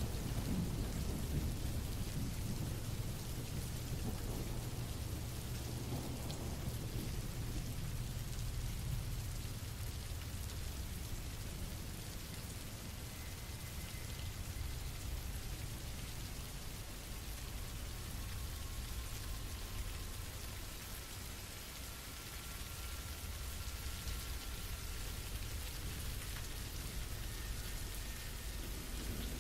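Steady rain hiss with a low rumble of thunder, heaviest in the first several seconds and then easing, leaving mostly the rain.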